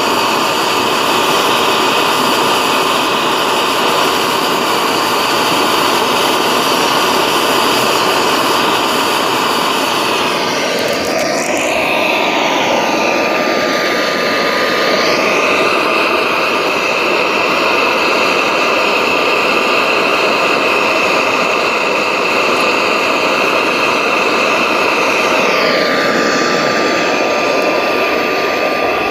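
Homemade paint-can propane forge's burner running loud and steady. The pitch of its tones shifts about a third of the way in and again near the end.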